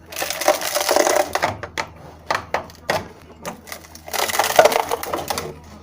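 Old fibreglass repair on a car's inner wheel arch being scraped and broken away with a hand tool. There are two spells of rapid crunching and scraping, each about a second and a half, with scattered clicks between them.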